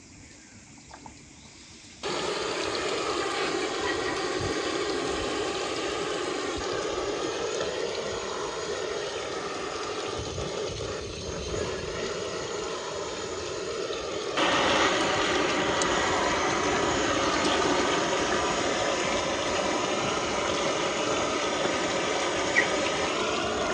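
Handheld butane blow torch hissing steadily as it singes the skin of a plucked chicken, starting suddenly about two seconds in. Partway through, it gives way to a louder, brighter rush of water pouring into a plastic tub over the chicken.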